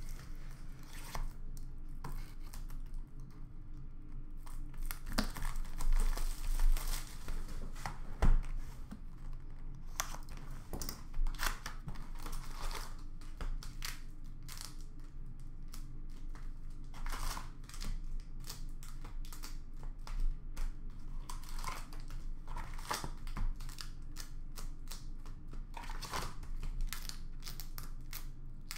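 Foil-wrapped Upper Deck hockey card packs and their cardboard box crinkling and rustling as they are handled, with many small irregular clicks and one sharp knock about eight seconds in.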